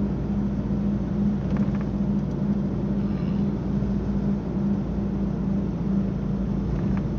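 Car driving at low speed: a steady rumble of engine and tyres with a low hum.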